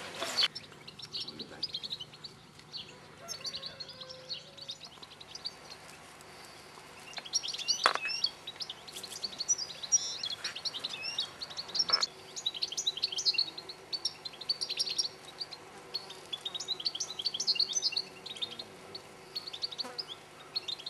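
European goldfinches twittering in bursts of quick, high chirps, with a few sharp clicks in between.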